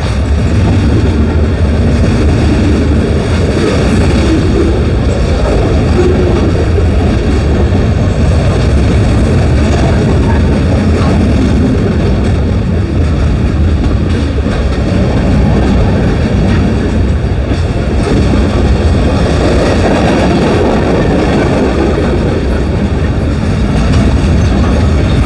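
Union Pacific mixed freight cars rolling past close by: the steady rumble of steel wheels on the rails, with no let-up.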